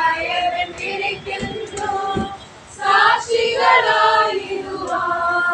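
A group of children singing together with a woman's voice among them, in short sung phrases with a brief pause about halfway through.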